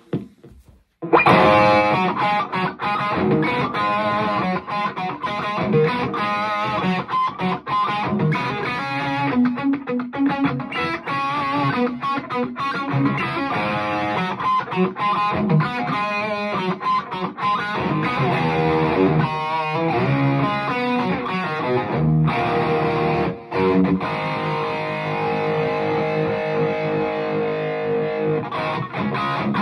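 Gibson Les Paul R9 electric guitar played through a 3rd Power Kitchen Sink amplifier and cabinet with an overdriven tone: riffs and lead lines that start about a second in, with one long held note in the second half.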